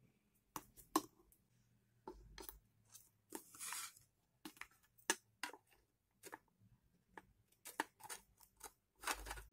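Thin wood-effect boards of a flat-pack miniature cabinet being handled and slotted together: a scattered series of light clicks and knocks of board against board, with a brief scrape a little after three seconds.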